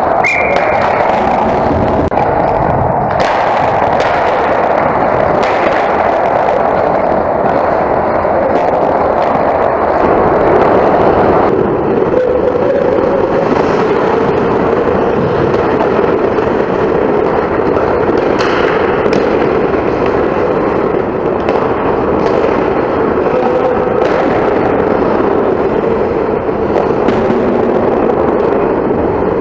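Ice hockey rink noise picked up by a camera mounted on the goal net: a loud, constant rumble with frequent sharp knocks and clacks from play around the net. About a third of the way in the sound turns duller as the audio switches to the camera at the other goal.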